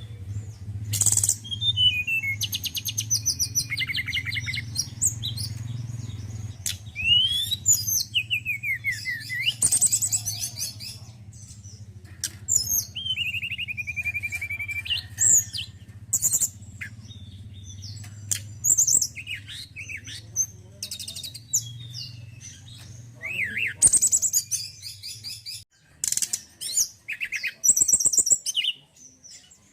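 Male tledekan gunung (Sunda blue robin) singing: a varied string of high chirps, fast trills and sliding whistles in short phrases.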